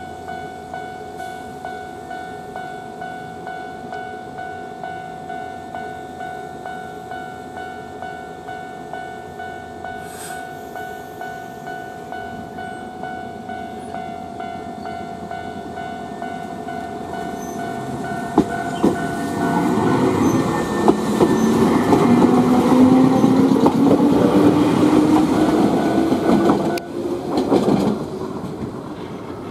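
Nankai electric train: for the first half a steady ringing tone pulsing about every two-thirds of a second, then from about 18 s in the train running past, much louder, with a motor whine that rises in pitch over wheel clatter. The sound drops away suddenly near the end.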